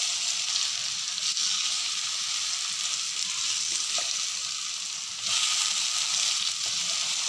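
Banana slices sizzling as they fry in ghee in a nonstick pan, turned with a wooden spatula. The sizzle is a steady hiss that gets louder about five seconds in.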